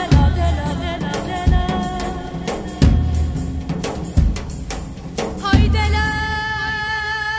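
Kurdish folk song by a female singer: a wavering sung line over heavy, evenly spaced drum strokes about every second and a half. Near the end the drums stop and a single long held note carries on.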